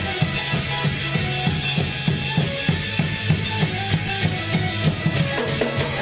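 Drum-driven music with a fast, steady beat of about five strokes a second over a sustained low bass.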